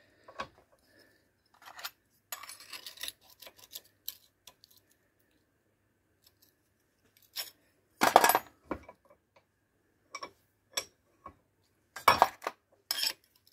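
Scattered metallic clinks and knocks from a bench vice and metal tools as a small piece of sheet metal is set in the vice jaws. A short scraping rattle comes about two seconds in, and the loudest knocks about eight seconds in and near the end.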